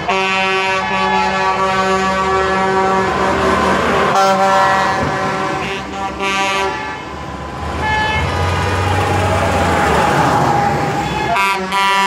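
Long, steady horn blasts from passing US Army Stryker armoured vehicles, one after another with short breaks, over the low rumble of their engines.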